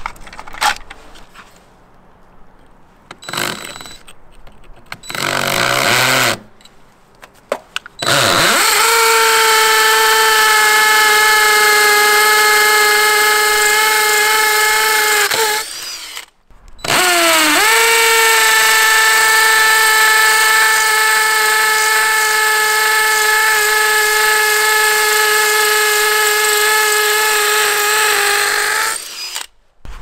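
Cordless drill boring holes into brick, in two long steady runs with a short stop between them. Each run starts with a quick spin-up and the pitch sags slightly under load. A few seconds of light handling clicks come before it.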